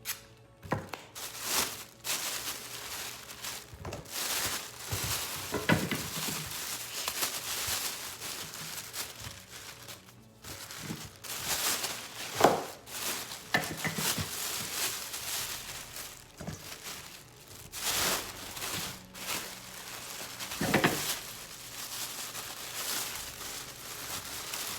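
Plastic bags and packaging crinkling and rustling irregularly as they are handled, with a few louder crackles.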